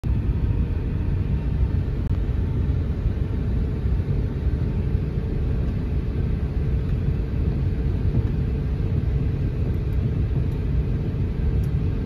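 Steady low rumble inside a jet airliner's cabin while the aircraft is on the ground, with a faint steady hum above it.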